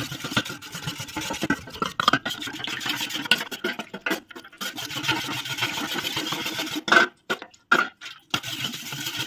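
A spoon stirring cornflour and milk in a steel bowl, rubbing and scraping against the metal in quick continuous strokes with a couple of brief breaks, working the lumps out of the batter.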